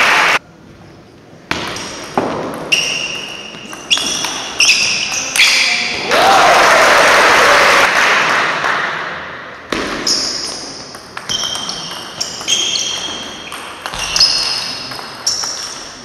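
Table tennis ball being struck back and forth in a rally, sharp hits about every two-thirds of a second, each with a short ringing ping off the paddle and table. About six seconds in the rally stops and there are a few seconds of crowd applause and cheering with a shout, then rallying hits resume.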